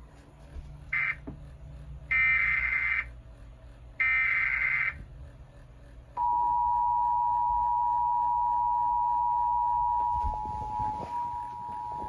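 Emergency Alert System tones: three bursts of SAME header data, a raspy digital warble, the first short and the next two about a second each, then the steady two-tone EAS attention signal starting about six seconds in. The attention tone holds for about four seconds, then carries on more quietly.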